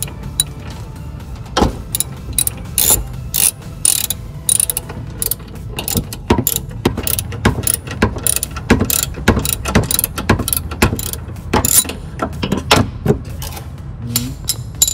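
Socket ratchet clicking in quick, uneven runs as it is worked back and forth on a 10 mm bolt under the bumper.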